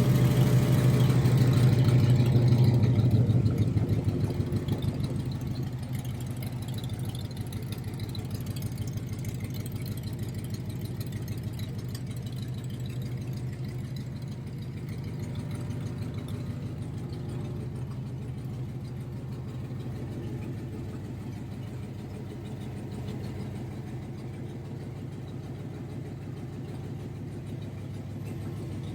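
Car engine running steadily, louder for the first few seconds and then settling to an even idle.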